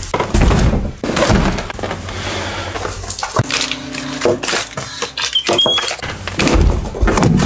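Cardboard boxes of firework batteries being lifted, set down and stacked: a run of knocks, thuds and scrapes of cardboard with rustling in between.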